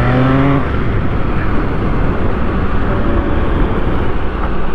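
MV Agusta Superveloce 800's 800cc inline-three engine accelerating, its pitch rising for about half a second before the engine note drops away. Steady wind and road noise from riding fills the rest, with the engine faint beneath it.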